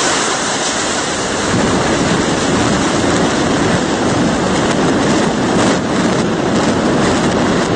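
Loud, steady rushing noise of a multi-storey building collapsing in a demolition implosion, with its dust cloud.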